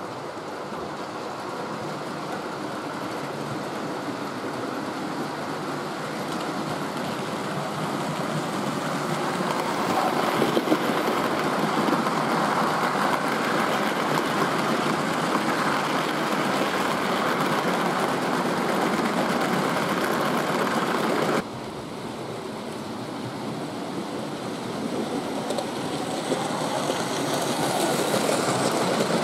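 Hornby OO-gauge model train running on layout track: the steady rumble of its wheels and motor grows louder as a long rake of goods vans rolls past. About two-thirds of the way through, the sound cuts abruptly to a quieter one that again grows louder as another model train approaches.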